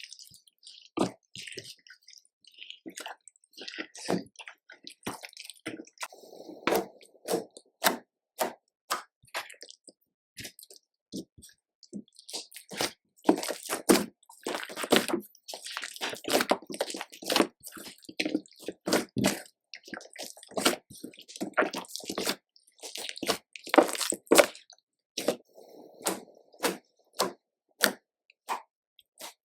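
Slime being squeezed, stretched and pressed by hand, with repeated wet squishing and sharp little pops and clicks as air pockets burst in it.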